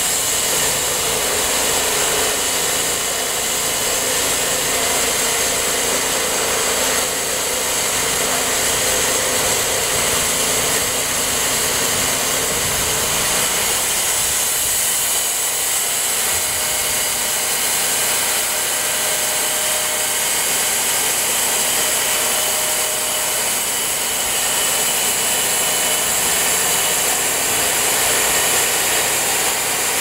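Cooks SW52 band sawmill cutting through a 36-inch-wide stump: its engine running under load with the band blade in the wood, a steady, even noise throughout.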